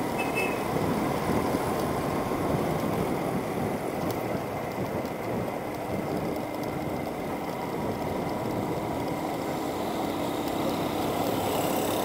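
Steady running noise of a moving road vehicle: engine hum mixed with tyre and road noise, even throughout, with a faint steady tone joining about halfway through.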